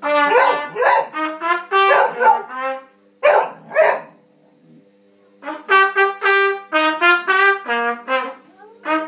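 A basset hound howling along with a trumpet. Wavering howls fill the first four seconds; after a pause of about a second, the trumpet plays a run of short, steady notes.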